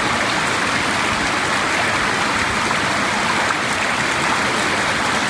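A steady, even rushing noise, with no distinct events and no change in level.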